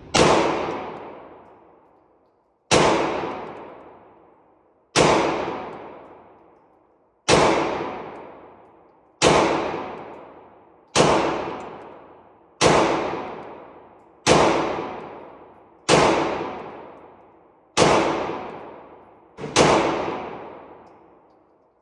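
CZ Shadow 2 9mm pistol with a DPM recoil system fired eleven times in slow, deliberate fire, a shot every two seconds or so. Each shot rings out and echoes away in the indoor range.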